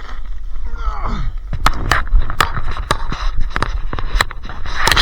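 Sharp clicks and knocks, about three a second, beginning about a second and a half in, over a steady low rumble.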